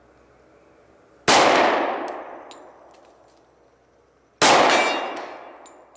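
Two shots from a 10mm Glock 20 pistol firing 230-grain hard-cast loads, about three seconds apart, each with a long echo trailing off. Faint sharp clangs of bullets striking steel targets follow.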